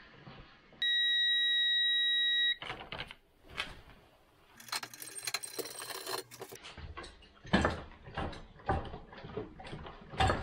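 A steady, high electronic beep lasting about two seconds near the start, then scattered metallic clicks, a rattle and knocks as the front axle is fitted back through the motorcycle's wheel hub.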